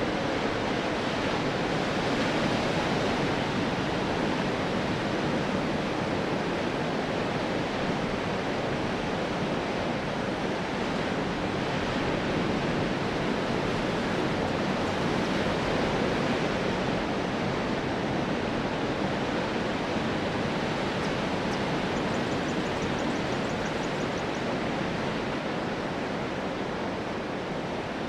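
Ocean surf washing onto a beach: a steady, unbroken rush of waves with gentle swells in loudness and no distinct single breakers.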